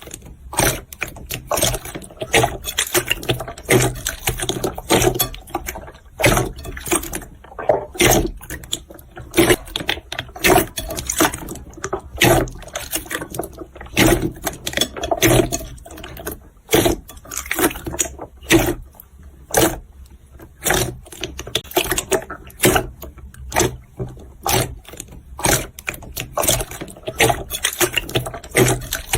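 Jiggly slime being squeezed and pressed by hand: quick irregular wet clicks, pops and squelches, several a second.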